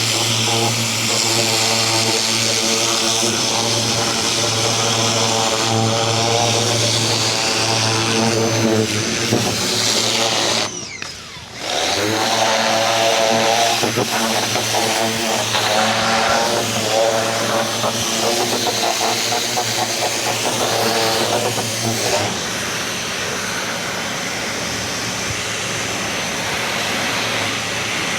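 Ryobi 2000 PSI electric pressure washer running steadily with the hiss of its spray. It cuts out for about a second near the middle as the trigger is let go, then starts up again.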